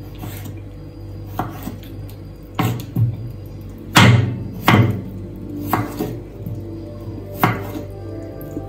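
Kitchen knife slicing chayote (cho-cho) into strips on a wooden cutting board. The blade knocks the board about nine times at an uneven pace.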